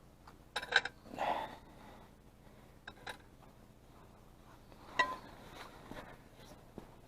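Metal camp cookware being handled, clinking and knocking: a cluster of sharp clicks about a second in, a few lighter taps, and one clink with a short metallic ring about five seconds in.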